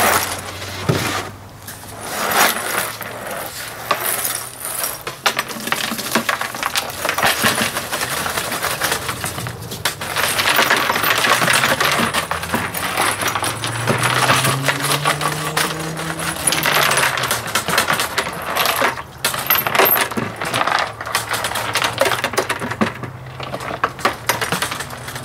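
Loose metal washers rattling and clattering inside a fuel tank as it is shaken, with diesel fuel sloshing around them to scour debris off the tank's inside walls.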